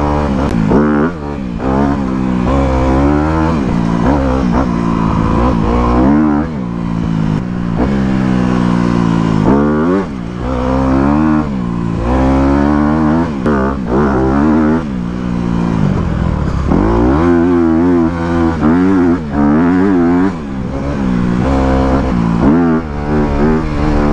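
Honda CRF250R dirt bike's single-cylinder four-stroke engine being ridden hard, revving up and dropping back over and over every second or two as the throttle is worked.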